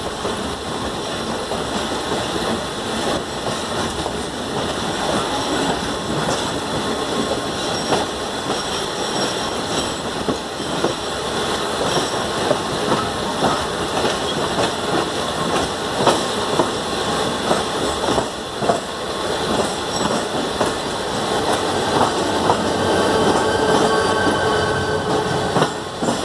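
Passenger train running, heard from inside the coach by an open window: a steady rumble of wheels on track, with irregular clicks and clacks as the wheels run over rail joints and points through a yard. A faint whine from the wheels joins in near the end.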